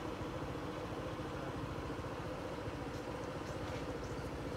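Steady low rumble of a vehicle engine running, with a few faint high chirps about three to four seconds in.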